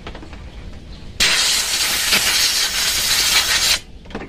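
Compressed-air blow gun blasting a steady loud hiss for about two and a half seconds, starting about a second in and cutting off suddenly, blowing off throttle-body parts freshly washed with petrol and carburettor cleaner.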